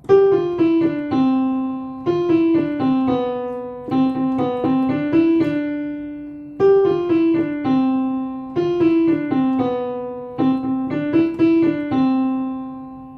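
Solo piano playing a simple children's song melody in separate, fading notes, the same phrase played twice.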